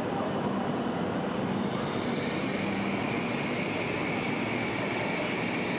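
E5 series Shinkansen train rolling slowly along the platform: a steady rushing hum with a high, even whine, and a second whine coming in about two seconds in.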